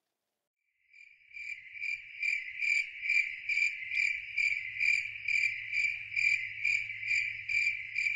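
Insect-like chirping, an evenly repeated high trill of about two to three chirps a second over a faint low hum, starting about a second in.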